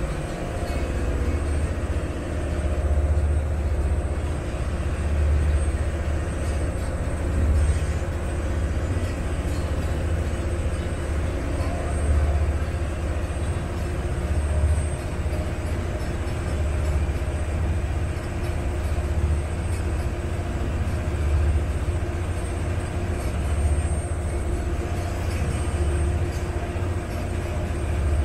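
Vaporetto water bus's engine running steadily underway: a deep rumble that swells and eases every second or two, over an even hiss of wind and water.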